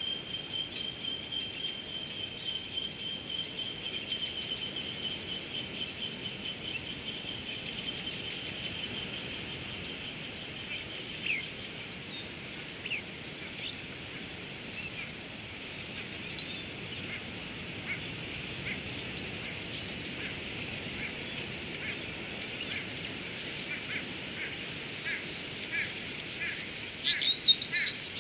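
Outdoor bush ambience: a steady high insect drone with a thin insect trill over the first ten seconds or so, then short bird chirps that come more and more often, with a cluster of louder chirps near the end.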